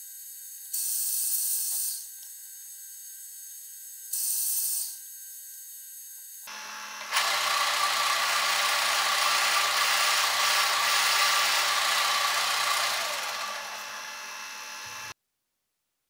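A milling machine drills small holes into a copper workpiece. Its motor hums steadily under two short drilling bursts of about a second each. From about seven seconds in comes a longer, louder run of the spindle and cut, which eases off and then stops abruptly about a second before the end.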